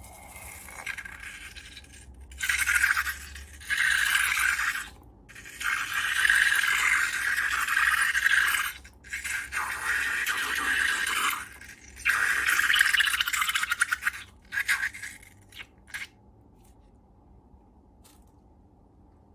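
Scraping sounds from slime being worked by hand, in bursts of one to three seconds, stopping a few seconds before the end.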